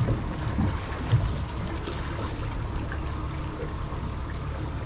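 Outboard motor of a small boat running steadily at trolling speed, a low rumble under a faint wash of water along the hull, with a few small clicks.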